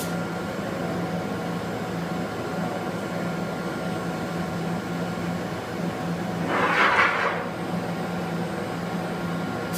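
Steady machine hum with a low drone and faint steady whine tones. About seven seconds in, a short rushing hiss rises over it for about a second.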